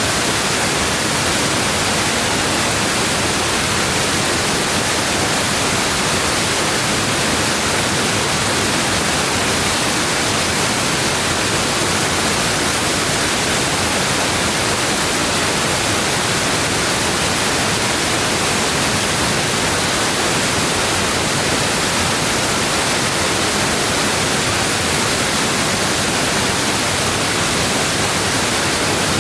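A waterfall's water crashing down in a steady, unbroken roar of rushing noise.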